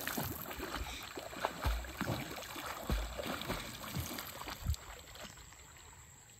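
A person swimming breaststroke through shallow water: irregular splashes and sloshes from the strokes, growing fainter as the swimmer moves away and dying out after about five seconds.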